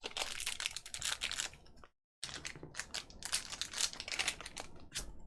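Small plastic bags crinkling and rustling with light clicks as aluminum keycaps are handled and taken out of them. The rustling breaks off for a moment about two seconds in, then resumes.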